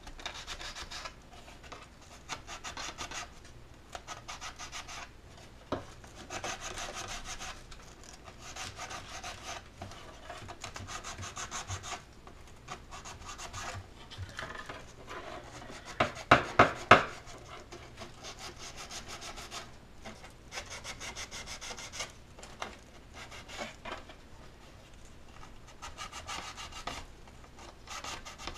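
Hand scuffing of a laser-cut wooden kit panel with sandpaper: repeated back-and-forth rasping strokes in runs, with a few much louder strokes about halfway through. It is roughing the edges where the bottom panel will be glued to the tub sides, taking off the laser-cut marks.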